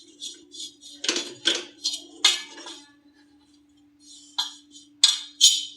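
Spatula scraping and clinking on a tava (flat griddle) as powdered turmeric is stirred, in quick irregular strokes with a pause of about a second near the middle, over a faint steady hum.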